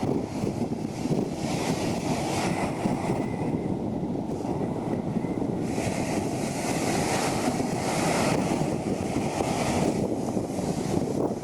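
Wind buffeting the microphone over the steady wash of ocean surf on a beach, with the hiss of the surf swelling twice.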